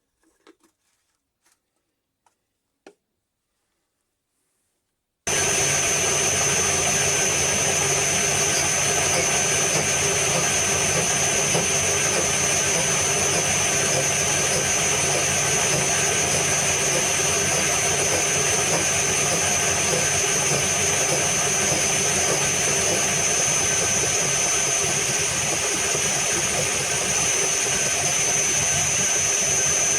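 A few faint clicks, then about five seconds in a machine-tool motor suddenly comes in loud and runs steadily, with a strong high-pitched whine over a dense mechanical noise.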